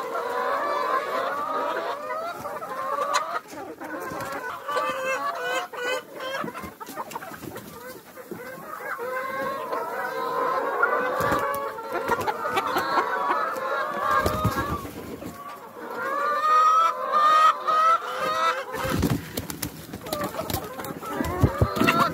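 A large flock of brown laying hens clucking and calling all at once, a dense chorus of overlapping calls. A few brief low rumbles come through about two-thirds of the way in and again near the end.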